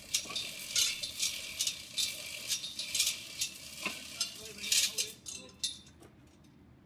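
Metal chain of a hand chain hoist rattling and clinking in repeated short bursts as the locomotive's air pump is lowered onto a trolley; the rattling stops near the end.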